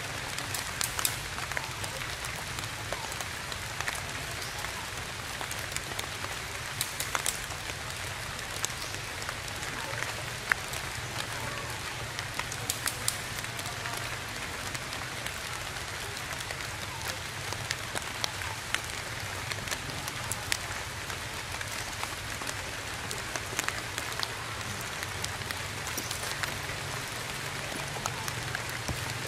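Steady rain falling on the leaves of the tree canopy, an even hiss with scattered sharper ticks of single drops striking close by.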